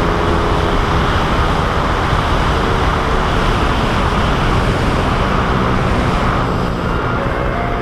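Motorcycle engine running steadily at cruising speed, fed by a newly fitted Koso 30 mm flat-slide carburetor, heard from the rider's seat with a steady rush of wind and road noise over it.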